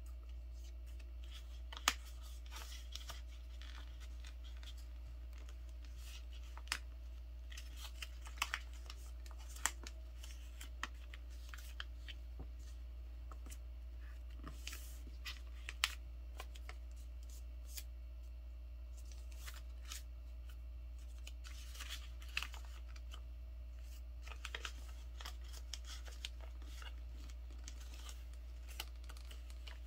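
A folded sheet of paper being handled, creased and pressed flat by hand on a table: scattered short, crisp crackles and taps of paper, over a steady low hum.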